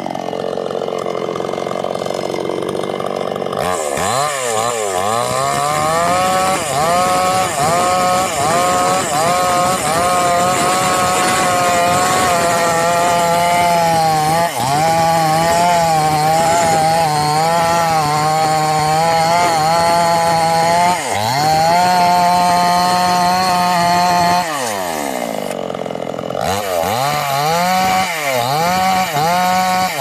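Two-stroke petrol chainsaw cutting into a block of wood. It runs at lower revs for the first few seconds, then throttles up, and its pitch sags and recovers as the chain bites. About 25 seconds in the revs drop away briefly, then climb back up for more cutting.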